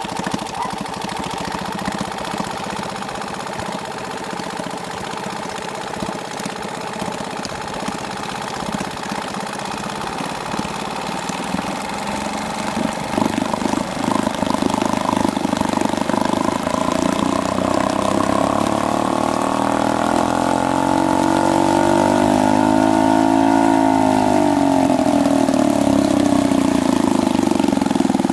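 1979 Johnson SeaHorse 2 hp two-stroke outboard running with its lower unit in a bucket of water. It runs steadily at first, gets louder about halfway through, then its pitch rises to a peak and drops back near the end as the engine speeds up and slows again.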